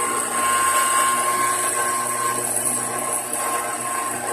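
400 W brushless CNC spindle running an end mill through aluminium plate: a steady high-pitched whine with a second steady tone lower down, over the even noise of the cutter cutting the metal.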